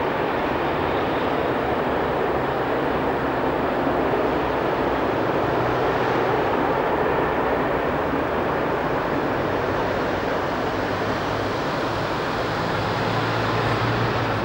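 A train running past on the electrified main line: a steady rumble of wheels on rails with a low hum that grows louder near the end.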